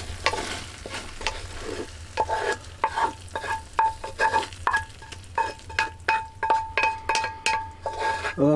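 Wooden spatula scraping hot korma out of a frying pan onto a plate of rice, in quick repeated strokes about two to three a second, over a faint sizzle. From about two seconds in, each stroke is followed by a short metallic ring from the pan.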